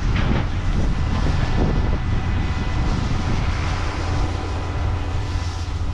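Farm harvest machinery running steadily at work: a low engine drone with faint steady whines above it.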